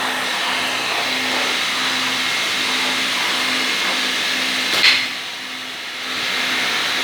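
Homemade stone-cutting machine running with a steady motor whine. About five seconds in there is a sharp knock, after which the sound dips for about a second and then comes back up.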